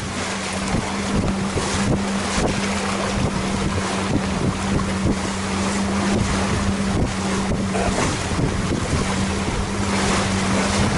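Wind buffeting the microphone and water rushing and splashing along the hull of a Catalina 22 sailboat under way in a fresh breeze, with a steady low hum underneath.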